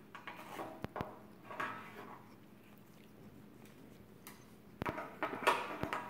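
Harlequin macaw shredding paper towel on a glass tabletop: scattered sharp clicks and taps of its beak against the glass, mixed with soft paper tearing, getting busier and louder near the end.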